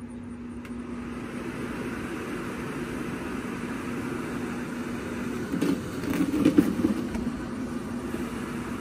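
Portable centrifugal floor blower (air mover) running, a steady rush of air over a low motor hum. After a click near the start the rush grows a little louder, and there are a few louder bumps about six to seven seconds in.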